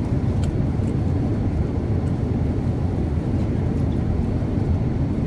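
Steady in-flight cabin noise of a Boeing 787 Dreamliner in cruise: an even low rumble of engines and airflow, with a few faint light clicks over it.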